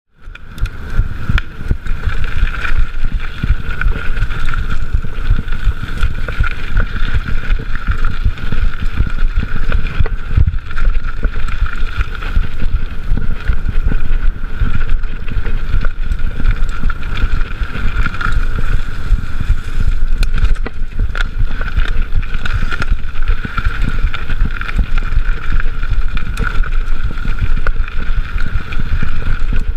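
Mountain bike riding over rough forest singletrack, heard through a chest-mounted GoPro: wind buffeting the microphone, with a constant rattle and knocking of the bike over the trail and a steady high-pitched whine.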